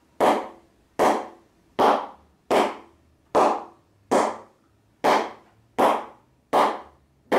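An old cricket ball bounced repeatedly on the face of a Grade 1 willow cricket bat: ten sharp wooden knocks about three-quarters of a second apart, each ringing briefly. This is a test of how well the ball comes off the bat's middle.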